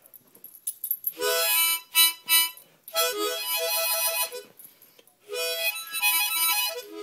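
Harmonica played in three short phrases of chords with pauses between, the first phrase ending in two quick blasts.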